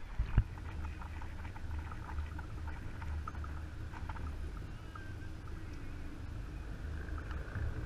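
A short knock about half a second in, then a steady low rumble of a small fishing boat sitting on the water, with faint short chirps now and then.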